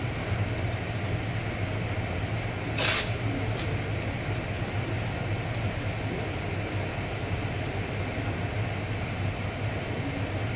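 Steady hum of workshop machinery with a constant hiss, and a short sharp hiss about three seconds in, followed by a fainter one.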